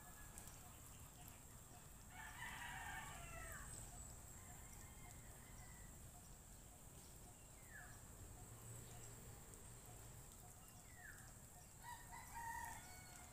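A rooster crowing faintly, once about two seconds in and again more briefly near the end, with a couple of short falling calls in between.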